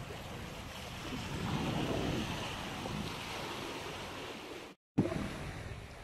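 Sea waves washing against a rocky shore, with wind rumbling on the microphone. The rush swells for a couple of seconds, then the sound cuts out for a moment about five seconds in.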